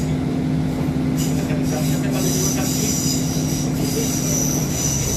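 Diesel passenger train running at a station platform: a steady engine hum with a high metallic squeal over it. The hum's main tone stops shortly before the end.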